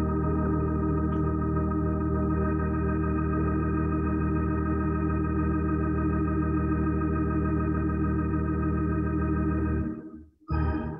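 Organ holding a long, steady chord with a wavering vibrato. It cuts off abruptly about ten seconds in and comes back briefly near the end.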